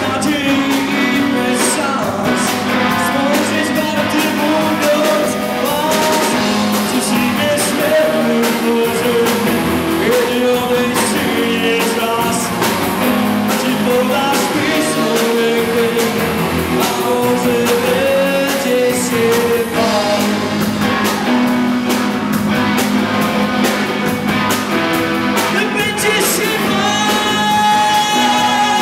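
A rock song: a voice singing over a guitar band with a steady beat. Near the end a long high held note comes in.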